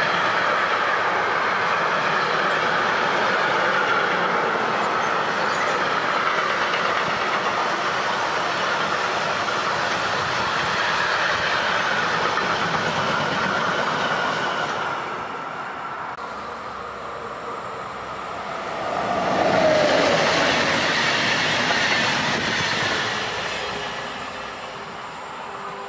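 Freight train of covered goods wagons rolling past on steel rails, a steady rumble and wheel noise that drops away about fifteen seconds in as the last wagons pass. A second train then passes close on the near track, louder around twenty seconds with a brief squeal, and fades as it moves off.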